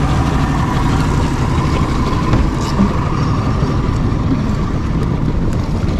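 Boat's outboard motor running steadily, a constant low rumble.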